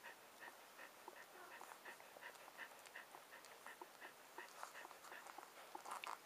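Six-day-old husky puppies suckling at their mother: faint, rhythmic little sucking squeaks and clicks, about three a second.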